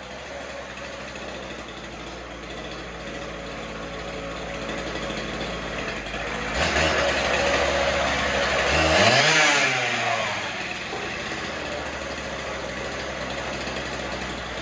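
Husqvarna K760 power cutter's two-stroke engine running on a newly fitted aftermarket carburetor. It runs steadily, steps up about six and a half seconds in, then revs up and back down around nine seconds before settling again.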